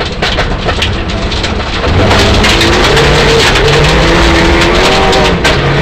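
Mitsubishi Lancer Evolution IX rally car's turbocharged four-cylinder engine heard from inside the cabin on gravel. About two seconds in it gets louder and climbs in pitch under hard acceleration, with a short break near the end at a gear change. Throughout, loose stones and gravel clatter against the underbody.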